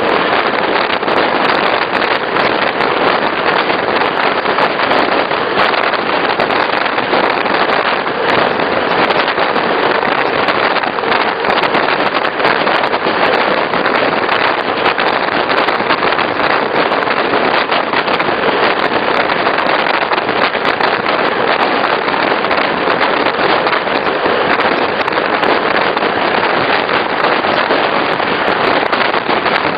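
Regional passenger train running along the track: a steady, loud rushing noise of wheels and air, with a constant patter of sharp rattling clicks.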